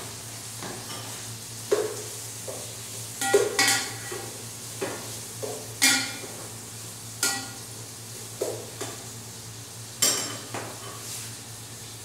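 A metal spoon stirring in an aluminium cooking pot, knocking against its sides and rim in about a dozen irregular clanks, the louder ones ringing briefly. A faint steady sizzle of ingredients frying in the pot lies underneath.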